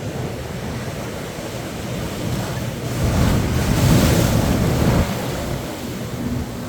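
Ocean waves washing onto a sandy beach. A louder wave breaks about three seconds in, its hiss peaking, then drops away about five seconds in.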